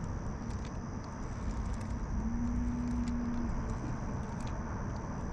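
Pond-side ambience: a steady high-pitched insect drone, with a low steady hum-like tone held for about a second starting about two seconds in, faint scattered ticks, and a low rumble.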